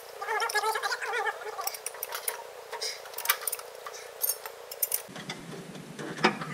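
Scattered metal clinks and taps of hand tools against steel fittings on a backhoe's hydraulic pump. The clinks are irregular, some coming several in quick succession.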